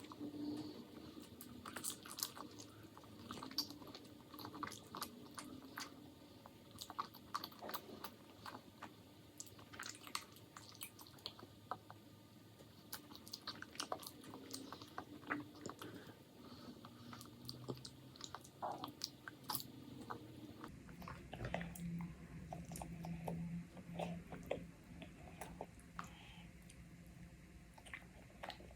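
Close-up chewing and biting of grilled chicken and fries: a run of short crunches and wet mouth clicks.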